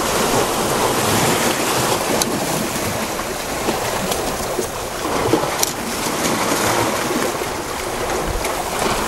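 Sea waves breaking and washing over rocks, a steady rush, with a few light clicks over it.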